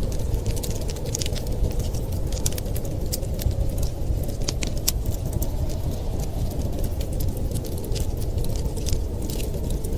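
Wood fire crackling, with many irregular sharp pops and snaps over a steady low rumble.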